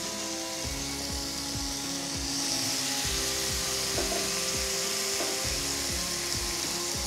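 Cream-marinated chicken malai kebab skewers sizzling on a ridged grill pan over a high gas flame, a steady hiss as the meat is seared at the start of cooking. Background music with held notes plays over it.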